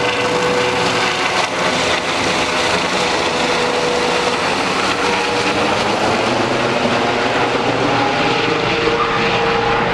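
Helicopter flying low overhead: steady, loud rotor and engine noise with a constant whine.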